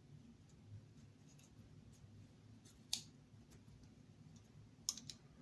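A few sharp clicks of a folding multi-tool being handled and opened: one about three seconds in and a quick pair near the end, otherwise near-quiet room tone.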